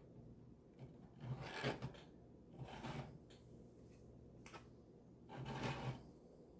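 Model kit parts being handled and worked at the bench: three short bursts of rubbing about a second, three seconds and five and a half seconds in, with a few light clicks between them.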